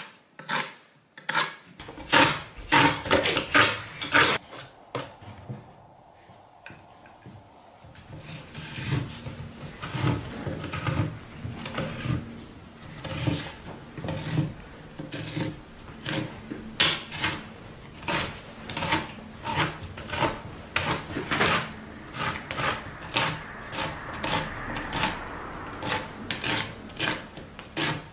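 A hand tool scraping and rubbing on thin wooden kumiko strips in short repeated strokes, a few a second. The strokes are louder and spaced out for the first few seconds, and closer together from about a third of the way in.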